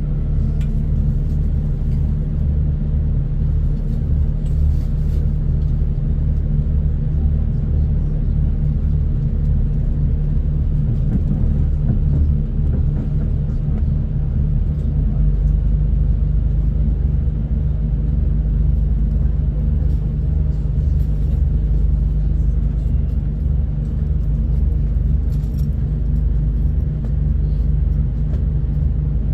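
Passenger train running, heard from inside the carriage: a steady low rumble.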